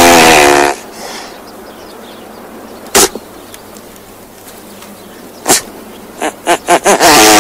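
Great bustard calling: a loud call falling in pitch at the start, a few sharp clicks in the middle, then another such falling call near the end.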